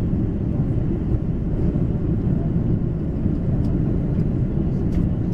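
Steady low rumble of a jet airliner's engines and airflow heard inside the cabin near the wing during the descent to landing. A faint click comes near the end.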